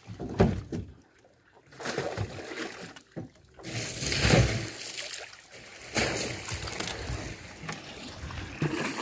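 Live crucian carp and catfish flopping in plastic crates: irregular wet slaps and splashes that stop dead twice in the first few seconds.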